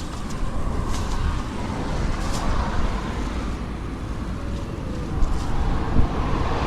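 Road traffic going by: a steady low rumble and hiss, with a few short clicks or knocks.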